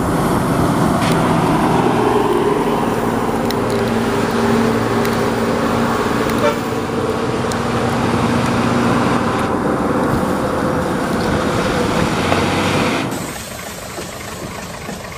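A steady, loud engine-like drone with a few held tones as a string of toy dump trucks moves across sand. It drops off abruptly about 13 seconds in.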